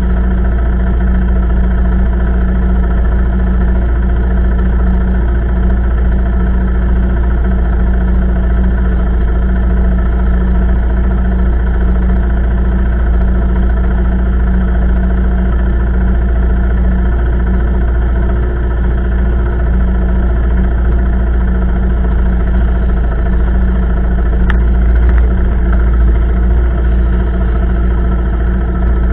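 Quad bike (ATV) engine idling steadily.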